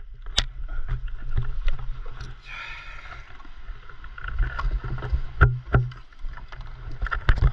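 Water lapping against a stand-up paddleboard over a steady low rumble, with a few sharp knocks of gear and paddle on the board that come thick and fast near the end.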